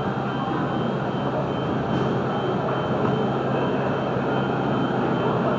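Miyano BNE-51MSY CNC lathe running: a steady mechanical hum with a faint constant high whine.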